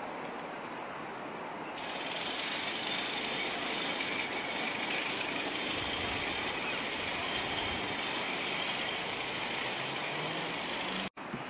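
Airbus A400M Atlas's four TP400 turboprops with eight-bladed propellers droning as it flies close by, with a high turbine whine that comes in about two seconds in and holds steady. The sound cuts out abruptly for a moment near the end.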